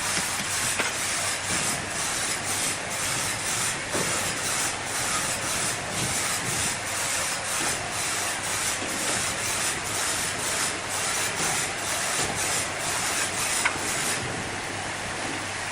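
Sawmill machinery cutting wood: a steady loud noise with a rapid rhythmic clatter of about three knocks a second over a low hum, easing off briefly near the end.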